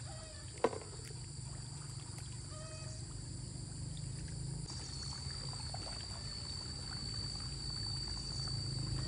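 Feet wading and sloshing through shallow muddy floodwater, over a steady low rumble and a steady high-pitched whine; one sharp click about half a second in.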